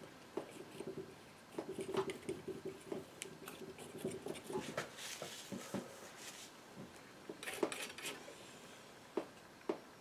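Painting knife scraping and tapping oil paint onto an MDF panel: a run of short scrapes and clicks, with denser scraping in the middle and two sharp taps near the end.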